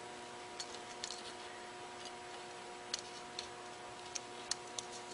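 Faint, scattered light clicks of small metal and plastic parts as the float hinge pin of a Tecumseh carburetor is lined up by hand, about seven ticks over five seconds, over a faint steady hum.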